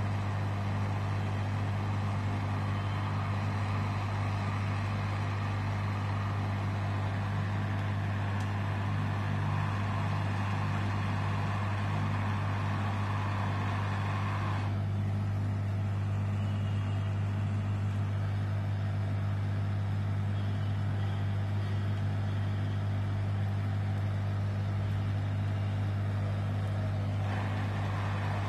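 Hot-air rework gun blowing onto a laptop motherboard to reflow components back into place: a steady fan-motor hum with rushing air. The airy hiss thins out about halfway through and comes back shortly before the end.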